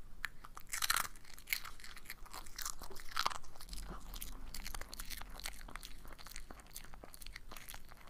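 A Yorkshire terrier crunching and chewing puffed dog popcorn treats close to a microphone: a fast, irregular run of crisp crunches.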